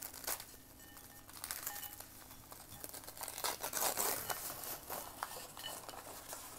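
A cardboard cornstarch box being torn open and a frozen block of cornstarch crumbling out into a bowl: paper crinkling and tearing with crunching and small clicks of chunks landing, loudest about four seconds in.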